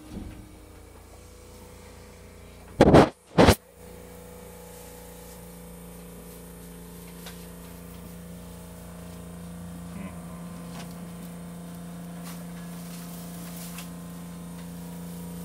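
Steady two-tone electrical hum inside a rubber-tyred automated tram car, with two loud, short noise bursts about three seconds in, just before the hum sets in.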